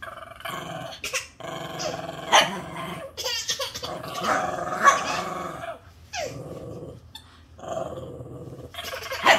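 Small dog growling in play, with a ball held in its mouth, in repeated bursts broken by a few sharp barks.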